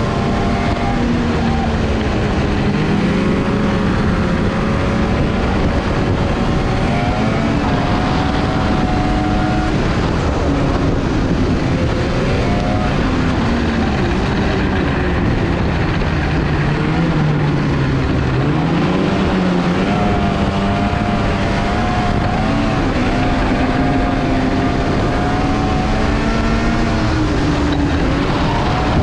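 Snowmobile engine running along a trail, its pitch rising and falling with the throttle and dropping briefly a little past the middle before climbing again, over a steady rushing noise.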